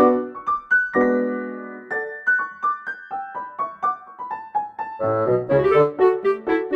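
Background music: a light, bouncy piano-like melody of short notes, with a held chord about a second in and fuller accompaniment with low notes joining about five seconds in.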